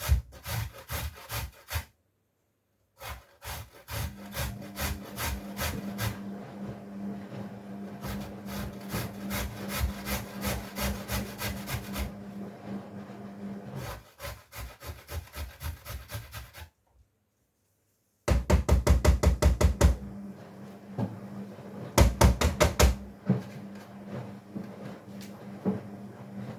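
Fast repeated scraping strokes of food preparation on a wooden board, in runs broken by short gaps, over the steady low hum of a running washing machine.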